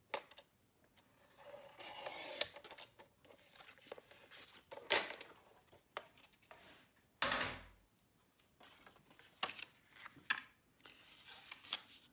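Paper trimmer cutting a sheet of patterned paper, the blade sliding through with a short rasping sound. This is followed by knocks and clatter as the trimmer is moved aside, the sharpest knock about five seconds in, then light rustling of card stock being handled.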